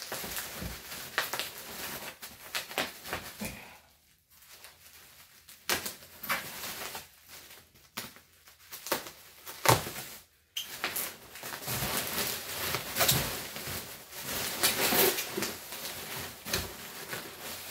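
Bubble wrap rustling and crinkling while packing tape is peeled off and snipped with scissors; irregular crackles and clicks, with a couple of short pauses.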